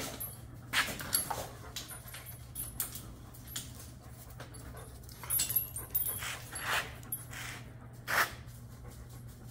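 German shepherd dogs playing together, panting with a few short, sharp huffs and scuffles.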